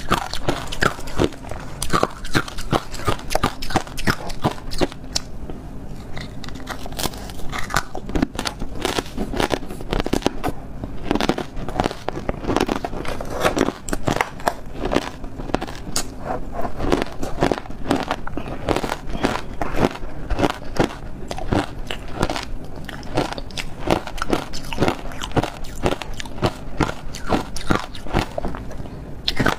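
Hard ice being bitten and chewed up close: thin pink ice discs and green crushed ice cracking and crunching in a fast, dense run of sharp snaps.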